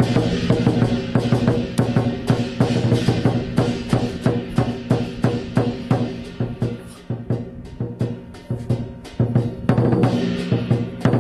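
Traditional Cantonese lion dance drumming (Hok San Gu): a fast, unbroken run of drum strokes with cymbals. The bright cymbal wash is strongest near the start and again near the end, and the strokes thin out a little in the middle.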